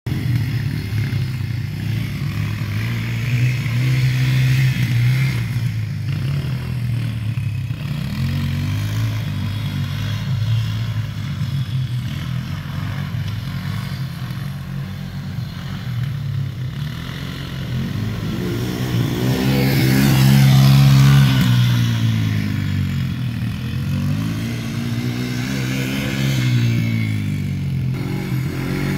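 ATV (quad bike) engine running as it is ridden around, its pitch rising and falling again and again with the throttle. It is loudest about two-thirds of the way through.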